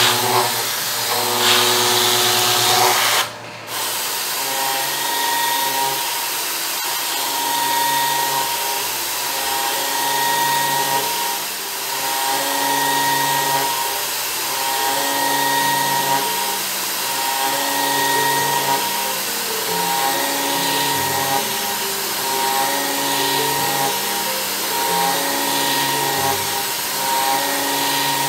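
A milling cutter with round inserts cutting into a metal block, giving a steady, hissy machining noise, over background music of held chords that change every second or two. The sound drops out briefly a little over three seconds in.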